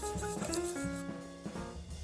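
Background music: plucked guitar-like notes over bass and drums.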